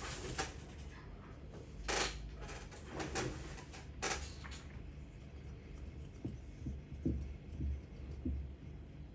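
Sharp clicks and clinks of small carburetor parts being handled and fitted, loudest about two and four seconds in, with a few fainter short knocks later.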